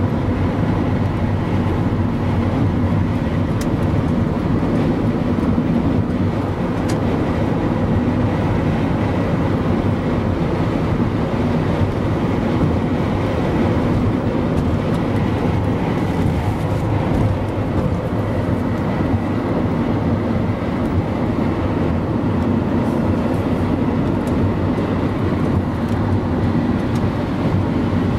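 Steady road and engine noise heard inside a car cruising at highway speed: an even, low rumble with no sharp events.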